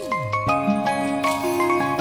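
Background music: an instrumental track with bright, bell-like mallet notes over steady sustained tones.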